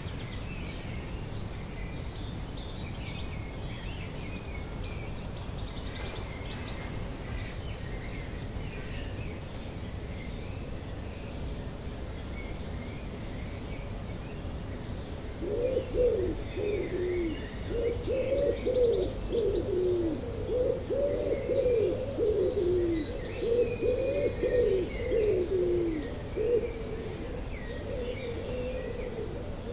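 Dawn chorus: many songbirds singing faintly and high-pitched throughout. About halfway through, a nearer bird starts a louder run of low, short falling notes, about two a second, which stops a few seconds before the end.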